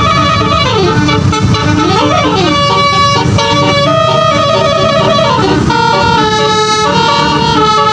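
Bus basuri telolet horn, a multi-note air horn with 24 notes, playing a continuous tune of held chords that step from note to note, with a few notes sliding down and back up in the first couple of seconds. Low engine noise runs underneath.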